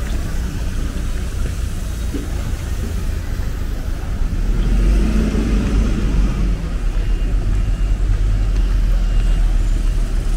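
Cars in slow traffic passing close on a rain-soaked road: engines running and tyres hissing on the wet surface, over a low rumble that gets louder about halfway through.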